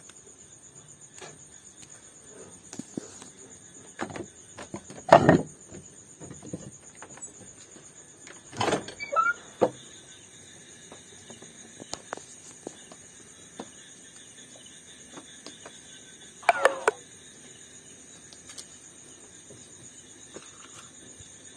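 A steady, high insect chorus of night insects runs throughout. Over it come scattered short scrapes and knocks from hands and camera handling, loudest about five seconds in, around nine seconds and around sixteen and a half seconds.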